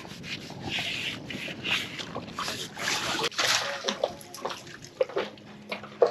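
A fouled sailboat hull being scrubbed at the waterline: repeated irregular scrubbing strokes, with water splashing and sloshing.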